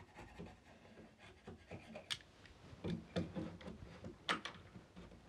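Faint scraping of a chisel paring the wooden edges of a door's lock mortise, with a few sharp clicks as the metal lock body is test-fitted into the opening.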